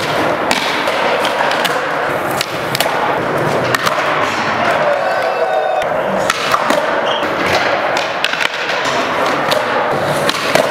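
Skateboards on a smooth concrete floor in an echoing indoor skatepark: wheels rolling, tails popping, and boards clacking and thudding down as skaters try flatground flip tricks.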